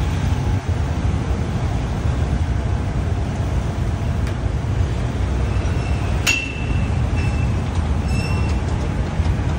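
Steady low rumble of street traffic, with a single sharp metallic clink a little past the middle that rings briefly, plus a few fainter ringing tones after it.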